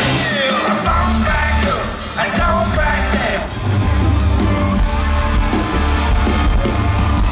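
Live rock band playing loudly with heavy bass and electric guitars, and a male singer's voice singing and yelling over it.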